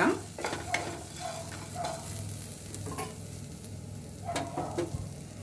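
Spatula stirring and scraping through a pan of lentils, spices, coconut, shallots and garlic frying in a little oil, with a light sizzle and scattered clicks of the spatula against the pan.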